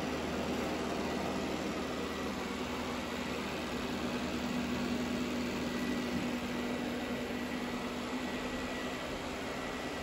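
Shark AI VacMop Pro robot vacuum running in mopping mode on eco suction: a steady whir from its suction and drive motors as it moves across the floor, with a low hum that comes up for a few seconds in the middle.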